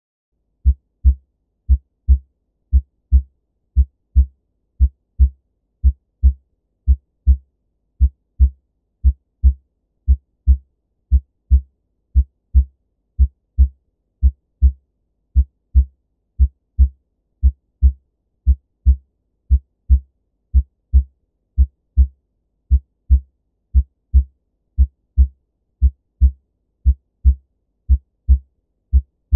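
Normal human heart sounds as heard on auscultation: steady pairs of low thumps, the first and second heart sounds (S1 and S2, 'lub-dub'), about once a second. There is nothing between the beats: no murmurs, rubs or gallops.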